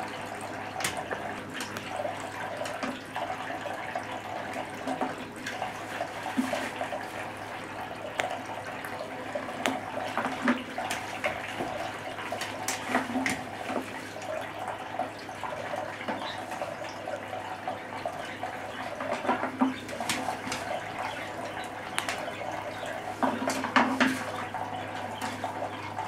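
Water trickling steadily from a small tabletop fountain, with scattered short splashes and taps as a green-winged macaw bathes in it, over a steady low hum.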